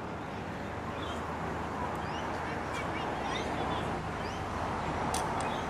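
Steady roadside traffic noise slowly swelling, with birds chirping over it and a few sharp clicks about five seconds in.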